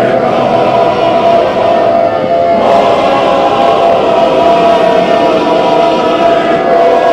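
Synthesized alarm drone: a loud, steady chord of many held tones sounding together, like a siren or horn, turning brighter and harsher about two and a half seconds in.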